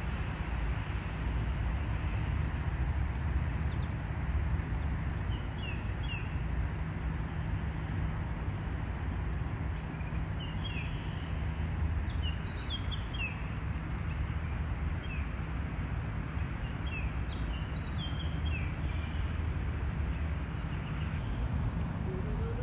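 Steady low outdoor rumble with a bird chirping now and then in short clusters of quick falling notes.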